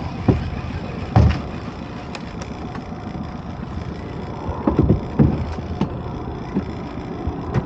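Waves slapping against the hull of a small boat in a choppy swell: a handful of irregular low thumps, several bunched together about five seconds in, over a steady rush of water and wind.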